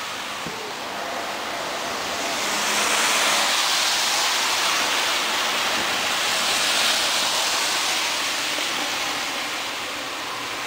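Hiss of car tyres on a rain-soaked road, swelling for several seconds in the middle as a car drives past close by.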